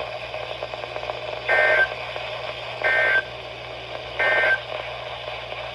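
Emergency Alert System end-of-message code on a weather radio: three short bursts of warbling two-tone digital data, about 1.3 seconds apart, over steady radio hiss. The bursts mark the end of the alert message.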